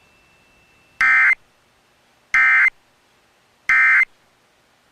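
Emergency Alert System end-of-message signal: three identical short bursts of warbling two-tone digital data, about a third of a second each and spaced about 1.35 s apart. These tones mark the end of the severe thunderstorm warning broadcast.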